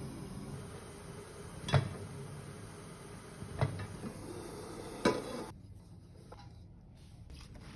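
Three sharp knocks of kitchenware, roughly a second and a half apart, over a steady low background hum.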